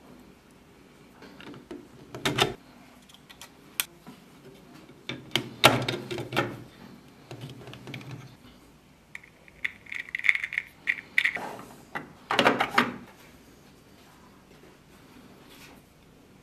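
3D-printed plastic parts being handled and fitted together by hand: scattered clicks, knocks and scrapes, the loudest knocks about two, six and twelve seconds in.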